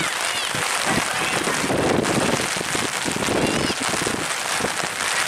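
Steady heavy rain falling, an even hiss of drops, with a few brief high-pitched shouts in the distance.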